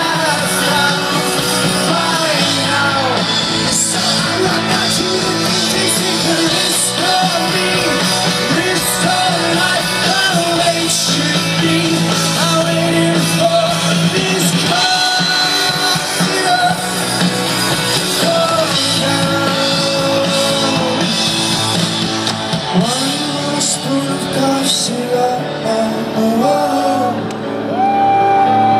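Live rock band playing a passage without lyrics: drum hits and sustained, bending melodic lines over a steady low bass.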